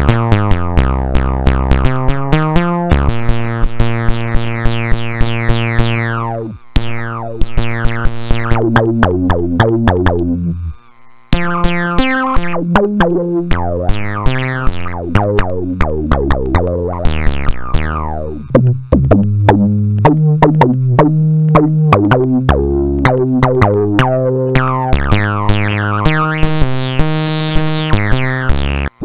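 BitBass, a DIY Arduino-based bass synthesizer with an analog four-pole low-pass filter and analog envelope generator, playing fast runs of plucky bass notes. Each note starts bright and quickly turns dull as the envelope closes the filter. The sound cuts out briefly about eleven seconds in.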